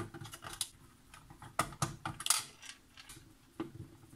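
Light, irregular clicks and taps of hands handling small circuit boards, plastic connectors and wiring inside a cassette multitrack recorder's case, the sharpest click a little past the middle.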